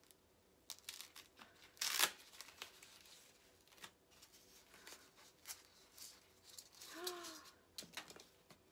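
Paper and plastic packaging being handled and torn open by hand: scattered rustles and small clicks, with one louder rip about two seconds in.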